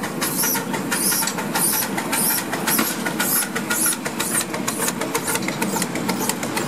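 Miniature steam locomotive chuffing as it runs past hauling passenger cars, a fast, even beat of hissing exhaust puffs over the clatter of the wheels on the track.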